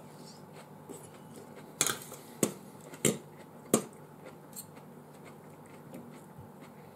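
A fork clicking against a plate four times, sharp and short, during a meal of Schupfnudeln and sauerkraut, with fainter ticks between.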